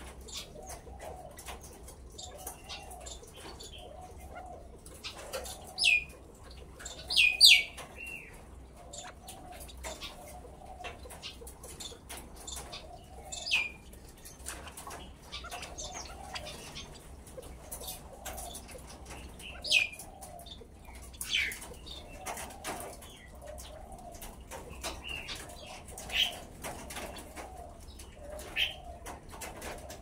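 California quail calling: about eight sharp, high calls that fall in pitch, the loudest two close together about seven seconds in, over a steady run of soft low calls roughly once a second. Faint ticking runs underneath.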